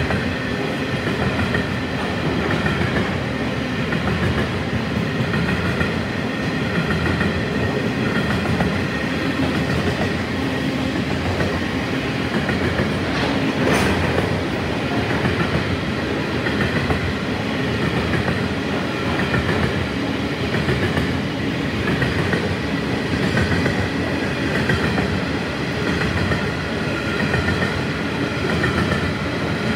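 Freight train of grain hopper wagons rolling past close by at a steady speed: a continuous loud rumble and clatter of steel wheels on the rails. A brief sharp clank comes about halfway through.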